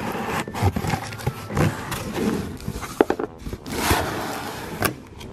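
Cardboard subscription box being opened by hand: irregular scraping and rustling of cardboard, with a few sharp knocks.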